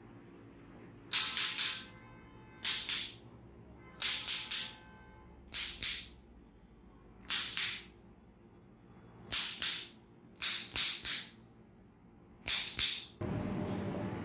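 Eight short bursts of rapid sharp clicking, each of three or four quick strokes, coming every one to two seconds. A duller, steadier rustle starts near the end.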